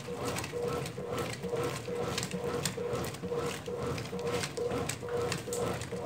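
1993 Brastemp Mondial BLL22 top-loading washing machine agitating in its wash stage: the agitator and its drive reverse back and forth in a steady rhythm, about two to three strokes a second, with water and suds sloshing in the tub.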